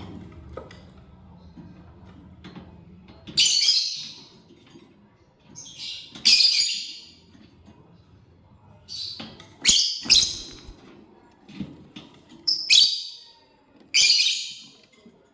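Lovebird giving short, shrill, harsh chirps, about eight of them in loose groups a second or two apart, over a faint low background hum.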